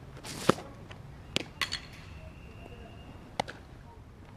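A softball change-up pitched: a sharp smack about half a second in as the windmill delivery comes through, then the ball popping into the catcher's mitt about a second later, followed by a few lighter knocks.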